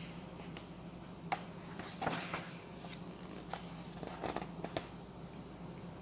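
Pages of a large book being turned by hand: soft paper rustles and light clicks, the loudest about two seconds in and a few more near the end, over a faint steady hum.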